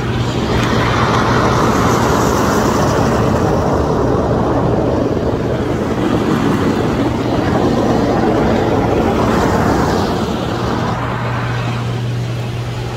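Hydromassage bed running: pressurised water jets rushing against the underside of the bed's membrane over the steady hum of its pump. The rush swells about half a second in and eases off near ten seconds, loud where the jets pass under the head.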